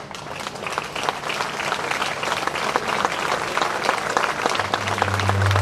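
Audience applauding, the clapping growing louder; a low held note of music comes in near the end.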